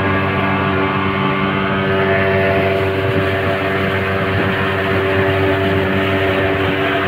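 Motorboat engine running at a steady speed, a constant unchanging drone over the rush of water and wind.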